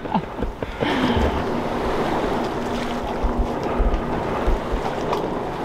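Wind buffeting the microphone with steady rushing noise and occasional low thumps. A faint steady hum runs underneath from about a second in.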